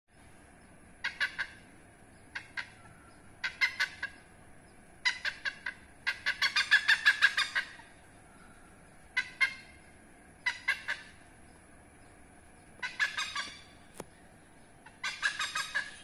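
Oriental pied hornbill calling: about nine short bouts of rapid repeated notes, the longest and loudest running for about a second and a half from six seconds in.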